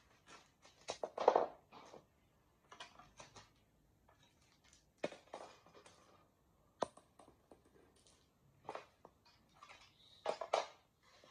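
Bubble wrap and plastic packaging crinkling and rustling in short spells as it is unrolled and handled, with a few sharp plastic clicks and knocks.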